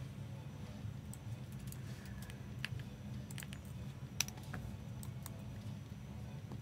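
Light, irregular clicks of typing on a computer keyboard, a handful of taps spread over a few seconds, over a low steady hum.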